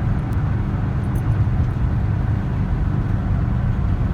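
Steady road and engine rumble of a VW Bus under way on a highway downgrade, heard from inside the cabin, with an even low hum.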